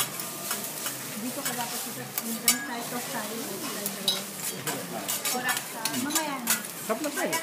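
Metal spatulas scraping and clicking on a hot steel teppanyaki griddle as fried rice is stirred and chopped, with sizzling underneath.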